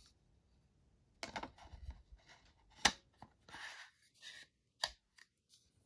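Handling noises from a camera lens and its plastic hood: short rustles and scrapes with a few sharp clicks, the clearest about three seconds in and another near five seconds.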